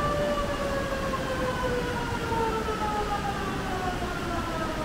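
A siren wailing, its pitch falling slowly and steadily, over a steady low rushing noise.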